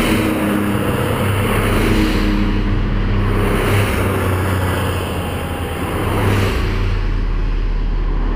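Porsche sports cars, 911s and a Boxster with flat-six engines, driving past one after another with their engines pulling steadily. The sound changes abruptly a few times as the shots cut.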